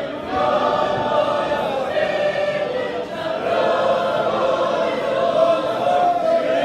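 Church choir singing a Christian hymn in Spanish, several voices in harmony holding long notes.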